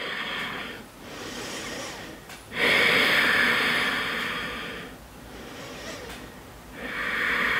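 A woman's deep, audible breaths: three long breath sounds, the middle one the loudest and longest at a little over two seconds.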